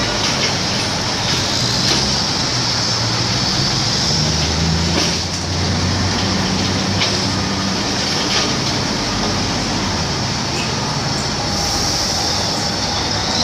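Heavy diesel engines of a Doosan wheel loader and a rigid dump truck running under load while the loader tips its bucket into the truck bed, with a steady hiss of dusty material pouring. The engine note swells about four seconds in, then settles.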